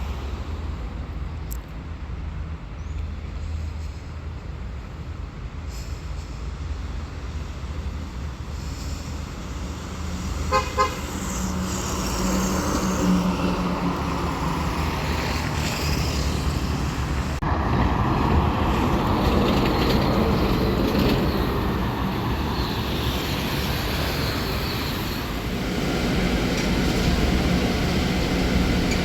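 BYD D11B articulated electric bus running, with low road and tyre rumble that grows louder as it gets moving. A short series of rapid beeps sounds a little past ten seconds in.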